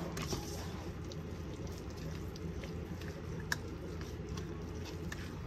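Spatula stirring shaggy no-knead sourdough bread dough in a mixing bowl: soft squishing and scraping with a few light clicks, one sharper click about three and a half seconds in, over a steady low background hum.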